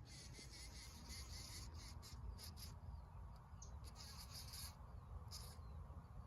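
Crickets chirping faintly in short pulsed groups that stop and start, over a steady low rumble.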